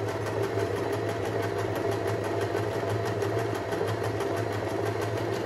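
AEG NM 1714 sewing machine running steadily at speed, stitching a row on fabric: an even motor hum with the rapid, regular ticking of the needle strokes.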